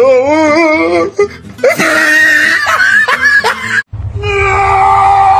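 A person's voice laughing and exclaiming with a wobbling pitch. Then, after a sudden cut about four seconds in, a steady music track.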